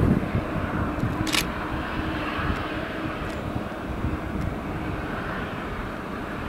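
A steady distant engine drone under gusty wind rumble on the microphone, with a brief hiss about a second in.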